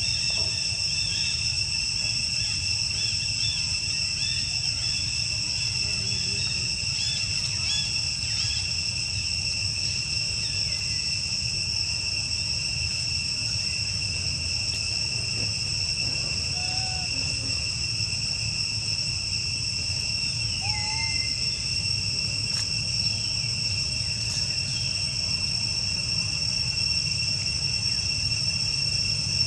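Steady insect chorus: a continuous shrill drone at two pitches that never breaks, with a few faint short chirps scattered through and a low rumble underneath.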